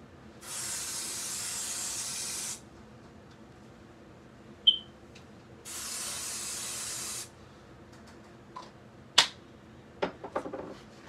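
Two steady hisses, the first about two seconds long and the second about a second and a half, with a sharp click between them and another click near the end.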